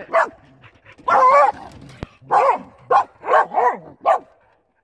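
Carolina dog barks and yips: about seven short pitched calls in quick succession, with one longer wavering call about a second in.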